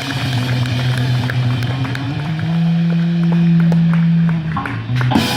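Street band playing rock music, with long held notes that step to a new pitch every couple of seconds.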